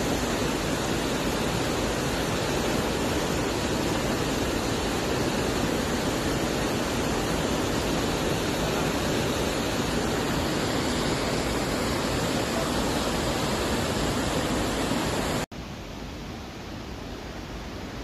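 Waterfall rushing steadily as it plunges into a pool. About three and a half seconds before the end, the sound drops abruptly to a quieter, steady rush of water.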